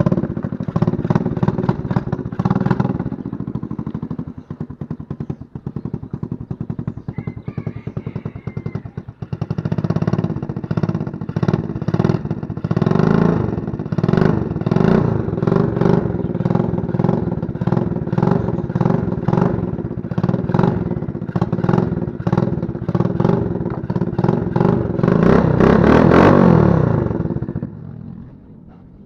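A modified 110 cc single-cylinder four-stroke quad engine, with a ported head, a 26 mm carburetor and a bigger exhaust, catching right at the start after a push start. It runs unevenly and more quietly for a few seconds, then runs louder and steady with repeated blips of the throttle. Near the end it revs up hard before the sound drops away sharply.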